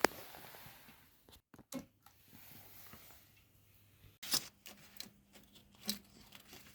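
Scattered small clicks and rustling handling noises. After a sharper click about four seconds in, a faint steady low hum sets in.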